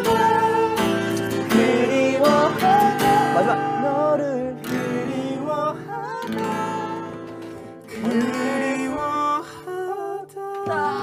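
A male voice singing a melody over strummed acoustic guitar.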